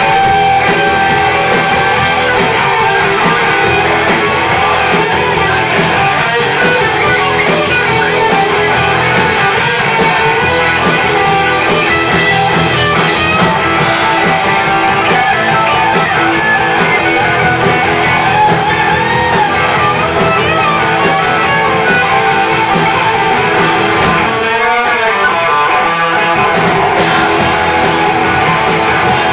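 Live hard rock band playing loud, with distorted electric guitars over bass and drums. About 25 seconds in the bottom end drops out briefly before the full band comes back in.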